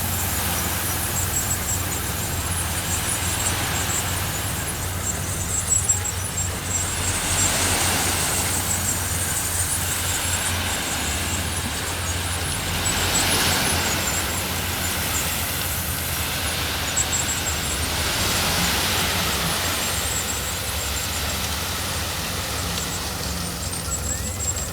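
Heavy diesel earthmoving machinery running steadily, with several swells of scraping noise as gravel is pushed and spread.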